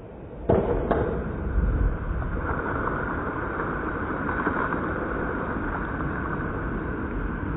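Slowed-down water noise from a waterproof action camera sitting at the surface of a pool, deep and muffled, with two sharp knocks about half a second and a second in. A cliff jumper's feet-first splash into the pool is drawn out into a long, steady rushing in it.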